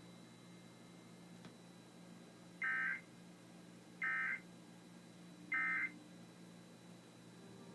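Emergency Alert System digital data bursts: three short, identical electronic warbles about one and a half seconds apart, the end-of-message code that closes the alert. They are short and evenly spaced.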